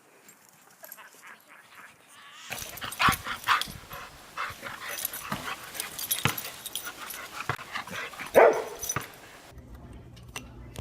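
Dog-like barks and yelps mixed with short sharp clicks and scuffles, the loudest bark about eight seconds in.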